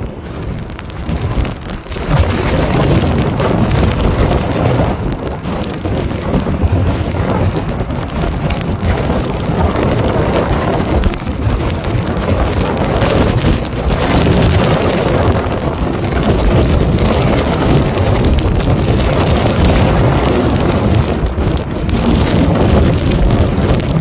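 Boeing 777-300's twin jet engines at takeoff power, a loud, steady rumble carried across the airfield, mixed with wind buffeting the microphone. The sound swells about two seconds in and stays up as the jet climbs away.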